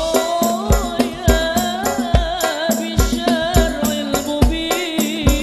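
Hadroh ensemble playing sholawat: a man sings a wavering, ornamented melody through a microphone over a steady beat of hand-struck frame drums (rebana) and a deep hadroh bass drum.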